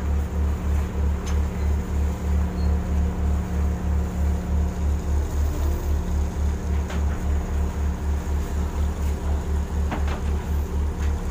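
Shrimp trawler's diesel engine running at low speed, a deep steady throb pulsing about three to four times a second, with sea and wind noise behind it.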